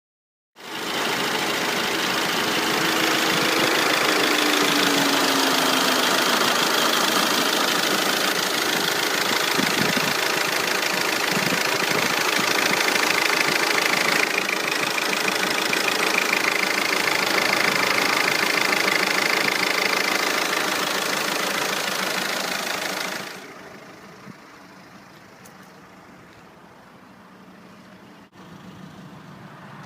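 Audi 2.0 TDI PD170 four-cylinder pump-injector diesel running, a dense steady clatter, on an engine that smokes and misfires at idle. About three-quarters of the way through the sound drops suddenly to a much quieter level.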